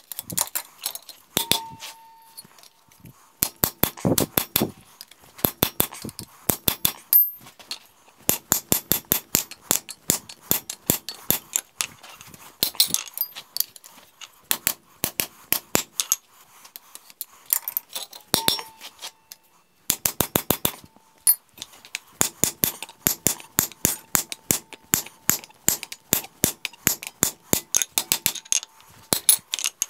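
Hand hammer striking a straight hot-cut chisel into a glowing square steel bar on the anvil, splitting the bar. The blows come in quick runs of about four or five a second, with short pauses as the bar is turned and reheated, and a faint metallic ring hangs between some of them.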